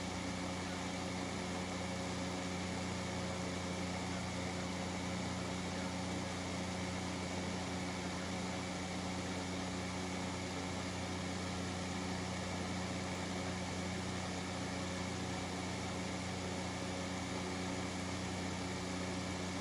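Comfort Zone box fan fitted with a metal blade from a 9-inch high-velocity fan, running steadily on high speed: the rush of moving air over a steady low hum from its shaded-pole motor.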